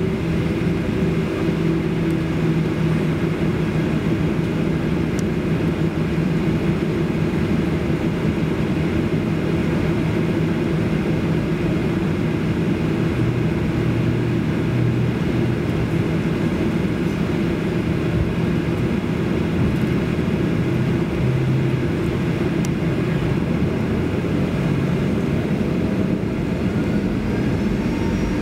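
Boeing 737-800's CFM56-7B jet engines heard from inside the cabin: a steady drone with low hum while taxiing. Near the end a faint rising whine begins as the engines spool up for the takeoff roll.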